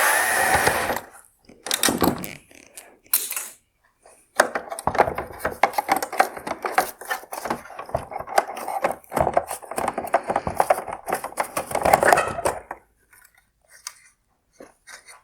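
Tool and plastic-part handling noise from a headlight housing being taken apart: a scrape lasting about a second, two short bursts, then about eight seconds of rapid rattling and scraping that stops about two seconds before the end, leaving a few small clicks.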